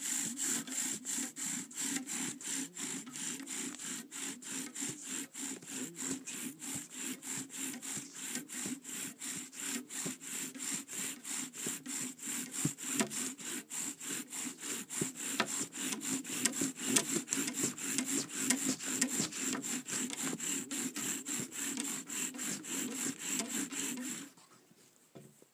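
Bow drill fire-lighting: a wooden spindle, capped by an ice bearing block, is driven back and forth by the bow and grinds in the hearth board's notch. It makes a rhythmic rasp of about three strokes a second, with a steady high whine running through it. It works the board hard enough to smoke heavily, then stops abruptly near the end.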